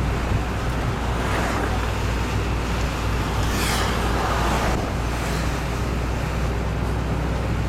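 Steady low rumble of a moving bus and its road noise, heard from inside the cabin. A louder rushing noise swells and fades between about three and a half and five seconds in.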